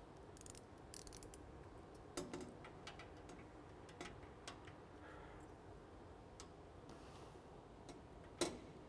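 Light metallic clicks and taps of hand tools on the fuel manifold B-nut fittings of a GEnx jet engine while the B-nuts are torqued. They come scattered, with two sharper clicks about two seconds in and near the end.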